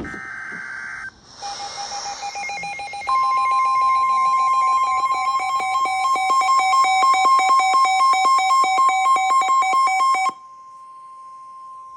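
Emergency alert tones for a tornado warning: a short burst of high warbling chirps, then a fast-pulsing ringing alert tone, joined about three seconds in by a steady high tone. The pulsing stops about ten seconds in, leaving the steady tone alone.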